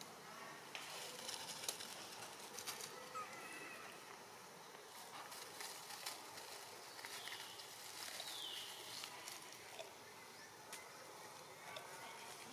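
Infant long-tailed macaques scampering and wrestling over dry leaf litter and gravel, making scattered rustles and clicks, with a few faint high chirps.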